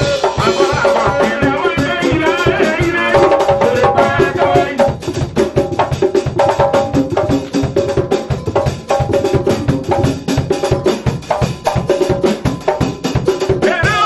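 Live church band playing an upbeat dance groove on drum kit, hand drum and keyboard, with two male singers singing over it. The singing drops away after about five seconds, leaving a drum-driven stretch, and comes back near the end.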